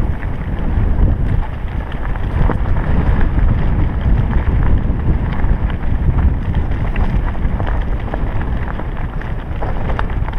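Wind buffeting the microphone of a bike-mounted camera as a mountain bike descends a rocky trail, with the tyres crunching over loose stones and gravel and many small rattles and clicks from the bike.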